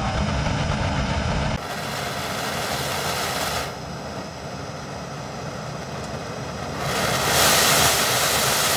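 Large surface-mix rocket burner firing, a steady rush of burning gas from the nozzle. The sound changes abruptly about a second and a half in, losing its deep rumble, and grows louder and hissier from about seven seconds.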